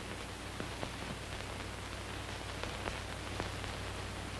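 Steady hiss with faint scattered crackles and a low hum: the background noise of an old 1930s film soundtrack.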